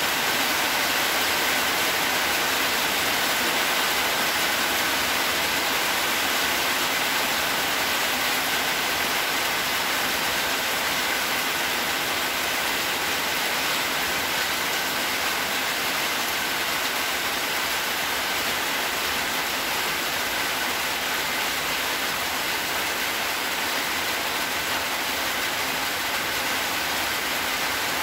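Steady, even rushing hiss with no distinct knocks or breaks, and a faint high whine underneath.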